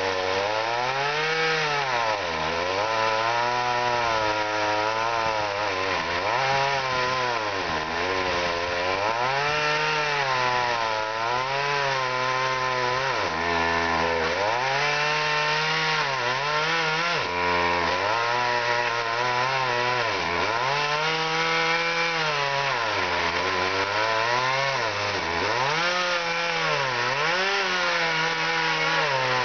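Chainsaw making the felling cut into a standing spruce trunk. The engine pitch dips and recovers every second or two as the chain bogs down in the wood and picks up speed again.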